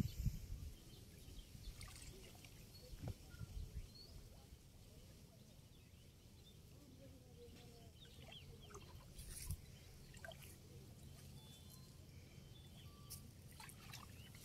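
Faint water sloshing and a few soft splashes as a hand net is pushed and dragged through shallow, weedy floodwater, with a few faint bird chirps.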